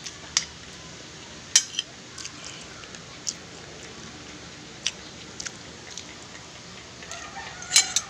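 Metal fork and spoon clinking against a glass plate while eating rice, a sharp clink every second or so, with a quick run of clinks near the end. A chicken calls in the background.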